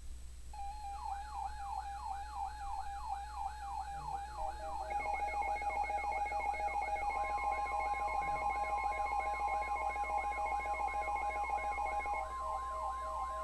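Weather alert radios sounding their warning alarms together. A siren-like tone sweeps up and back about two to three times a second over a steady beep, and more steady and pulsing tones join about five and seven seconds in. This marks a severe thunderstorm warning coming in over NOAA Weather Radio.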